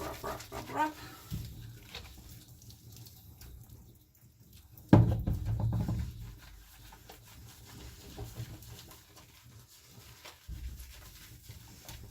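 A puppy's wet, soapy coat being rubbed by hand during a bath, with light wet patter and small handling noises. There is a sudden loud thump about five seconds in.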